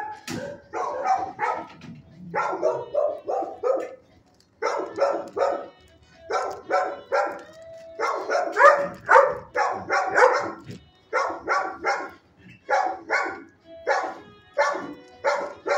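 Dogs in neighbouring shelter kennels barking in quick runs of three to five barks with short pauses between runs.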